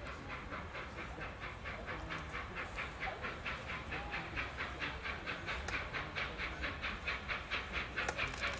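Steam locomotive working steadily with its exhaust beats chuffing at about four a second. The beats grow louder as the engine approaches, still unseen.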